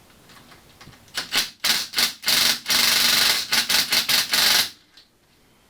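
Gas-shielded (MIG) welder crackling in a run of short stop-start bursts with one longer continuous stretch, welding a nut onto a seized engine mounting bolt. It cuts off abruptly near the end.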